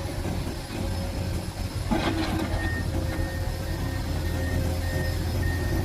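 Heavy diesel engines running steadily, with a brief clatter about two seconds in, then a reversing alarm beeping about twice a second.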